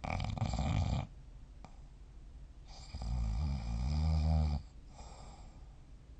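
A person snoring in their sleep: a short, harsh snore at the start, then a longer, low-pitched snore from about three seconds in.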